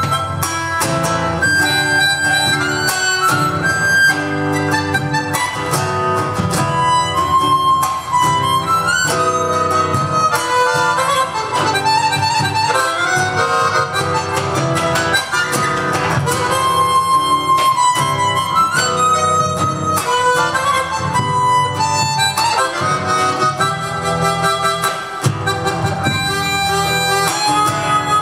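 Harmonica played into a microphone: a melody of quickly changing notes with chords sounding beneath it.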